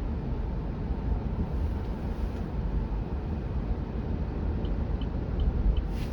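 Steady low road and tyre rumble heard inside the cabin of a Cruise self-driving Chevrolet Bolt electric car while it drives. About four and a half seconds in, faint regular ticks start, a little over two a second, typical of the turn signal clicking ahead of a lane change.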